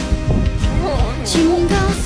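Pop music with a sung melody over drum hits.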